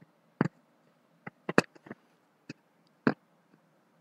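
Scattered short clicks and taps, about seven at irregular intervals, the loudest a little after a second and a half and another near three seconds.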